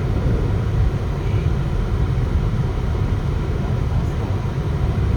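Steady low rumble of a car driving on a snow-covered road: engine and tyre noise.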